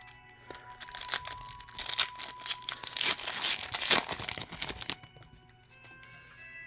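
Foil booster pack wrapper crinkling and being torn open for about four seconds, then stopping, over soft background music.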